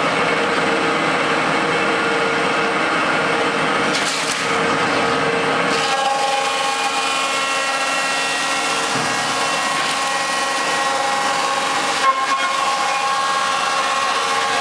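Electric-motor-driven log sawdust machine running, chipping wood logs into sawdust with a steady mechanical whine; the pitch of its tones shifts about six seconds in. A single sharp knock sounds about twelve seconds in.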